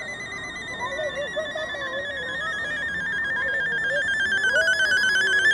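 Homemade electronic circuit giving out an artificial birdsong: a high, rapidly warbling synthetic trill. It sinks slowly in pitch and starts to climb again near the end, sounding much like a phone ringing.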